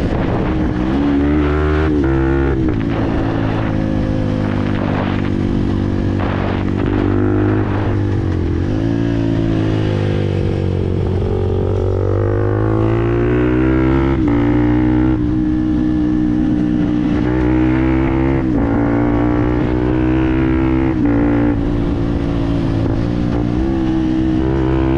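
Fantic Performance 125 Motard's single-cylinder four-stroke engine running through a GPR aftermarket exhaust under way. The revs hold mostly steady, dropping about a third of the way in and then climbing gradually.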